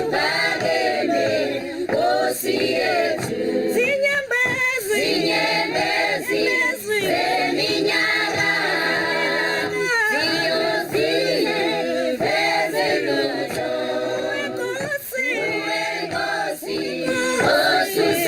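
Choir singing, several voices together in harmony.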